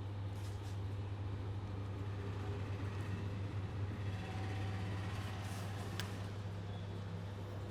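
Steady low hum under a hiss of background noise, with a few faint clicks, the sharpest about six seconds in.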